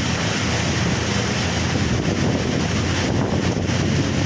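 Fast-flowing floodwater rushing and churning through a street, a steady full roar of water, with wind buffeting the phone's microphone.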